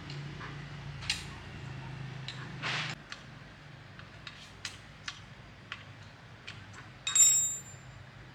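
Scattered light metallic clicks and taps of hand work on machine parts, with a short scraping burst about three seconds in. Near the end comes a louder clink of metal that rings briefly.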